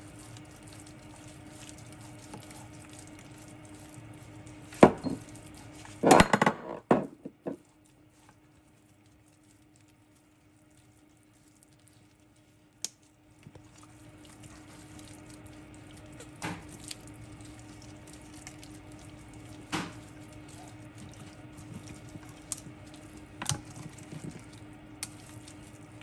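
Scattered knocks and clinks against a baking dish as gloved hands rub marinade over whole fish, with a quick run of knocks about six seconds in, over a steady low hum.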